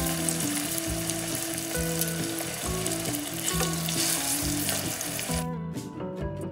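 Marinated salmon pieces sizzling in hot oil in a nonstick frying pan as more pieces are laid in with tongs. The sizzle cuts off abruptly near the end, leaving background music.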